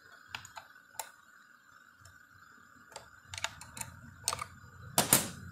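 Metal clicks and taps of a wrench on the bolt that joins the cutter block's arm to the handle, as the wrench is fitted and worked to break the bolt loose. The clicks come scattered, thicken after about three seconds, and are loudest near the end.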